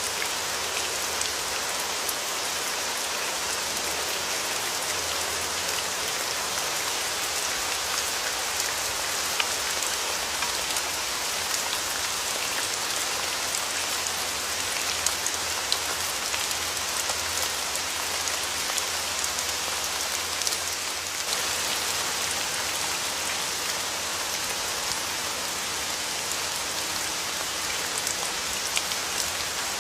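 Steady rain falling, a continuous hiss with individual drops tapping.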